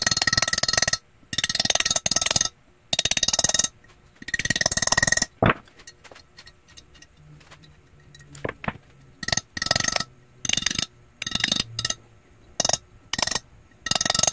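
Small hammer tapping lightly and quickly on a metal valve-seal driver, seating valve stem oil seals onto the valve guides of a Subaru EJ25 aluminium cylinder head. There are four runs of quick taps with a faint metallic ring in the first five seconds, then scattered single taps.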